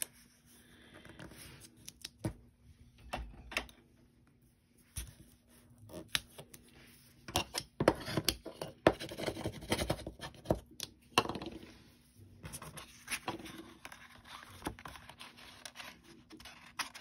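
Cardstock and a sheet of acetate being handled and pressed down on a cutting mat: irregular rustling and scraping with small clicks and taps, busiest in the middle.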